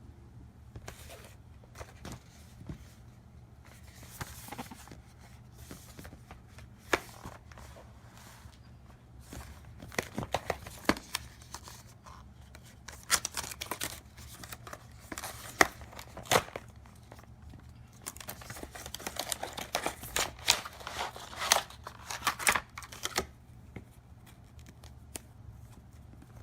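Retail packaging being handled and opened by hand: scattered clicks and knocks with tearing and crinkling of plastic and cardboard, busiest about three quarters of the way through.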